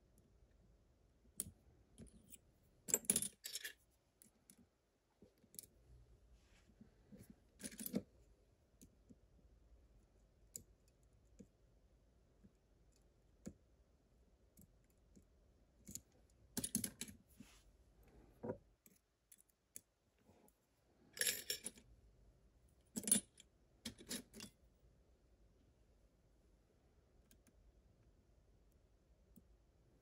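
Lock picks and a tension wrench working an Abus TS5000 lock cylinder: small scattered metallic clicks and scrapes, with a few louder clusters of clicks about 3, 8, 17 and 22 seconds in.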